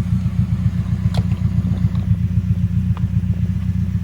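A vehicle engine idling: a steady, rapidly pulsing low rumble, with a couple of faint clicks over it.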